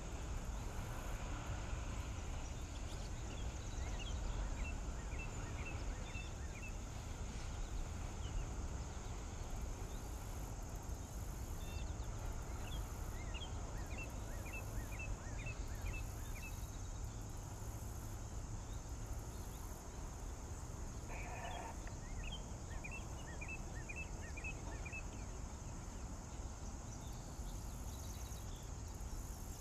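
Summer outdoor ambience: a steady high insect drone over a low rumble, with a bird twice singing a quick run of short repeated chirps.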